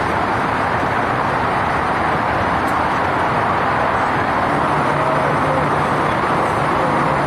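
Steady road-traffic noise: an even, unbroken wash with no single vehicle passing or standing out.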